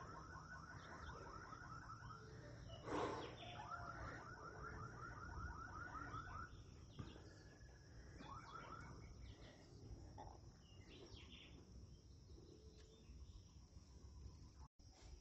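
Faint bird song: a rapid trill of quickly repeated rising notes in two long runs and a short one later. A brief knock or rustle about three seconds in.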